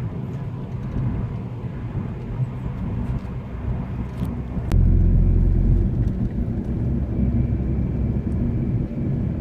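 Road and engine noise inside a moving Mazda's cabin: a steady low rumble. About five seconds in there is a sharp click, then a heavier low rumble for about a second.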